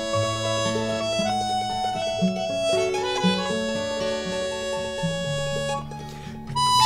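Live band playing an instrumental break between sung verses of a folk song: a lead melody of held notes over a moving bass line. The level dips briefly near the end before the band comes back in louder.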